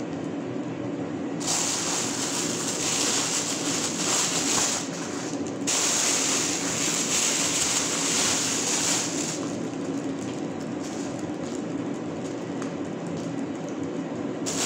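Thin plastic bags rustling and crinkling as they are handled and filled with seafood, loudest in two long stretches in the first half, over a steady low hum.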